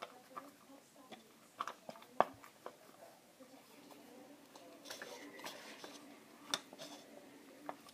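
Scattered light clicks and taps of a stick working inside a plastic bottle-top funnel, pushing a squishy stress-ball filling down into a balloon; the loudest clicks come about two seconds in and again past six and a half seconds. A faint steady low hum runs underneath.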